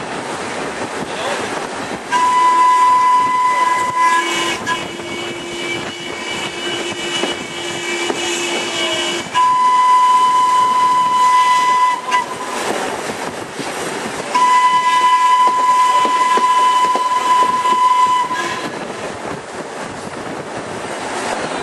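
Steam whistle of North British-built steam locomotive 191 blowing three long blasts, the last one the longest, over the steady running noise of the moving train.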